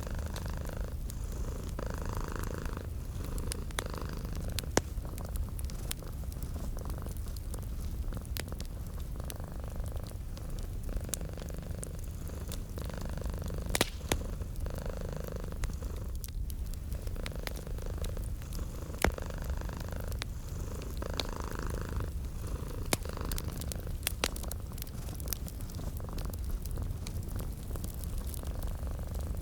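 A domestic cat purring in a steady low rumble that swells with each breath, about once a second. Over it, a wood fire crackles with scattered sharp pops, a few louder ones standing out.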